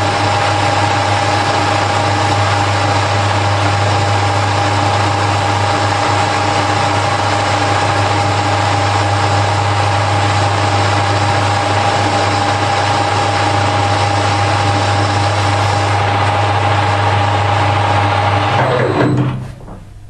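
Harrison L5 metal-turning lathe running at a steady speed with a constant whine and a low hum, then switched off and spinning down about 19 seconds in.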